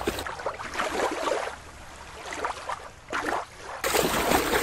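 Splashing in shallow water as a plastic orca toy is dashed and dragged through it by hand, in irregular bursts with a quieter stretch in the middle and the loudest splashing near the end.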